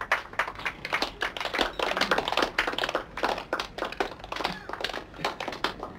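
Small audience applauding: many separate hand claps that thin out toward the end.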